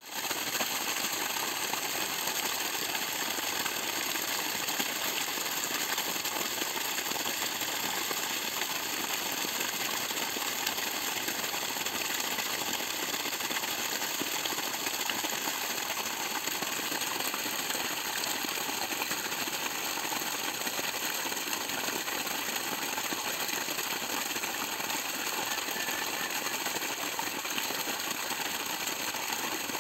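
Borewell water gushing steadily from a pipe outlet and splashing onto wet ground, lifted by a 5 hp, 10-stage submersible pump running at full flow.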